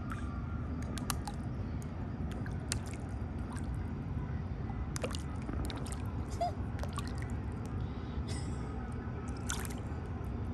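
Bluegill snapping up feed at the water surface: small irregular pops, drips and splashes over a steady low rumble.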